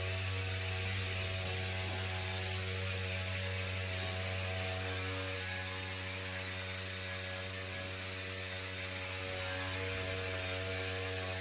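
HVAC equipment running: a steady low electrical hum with a faint hiss of airflow over it, the loud noise the service call is about.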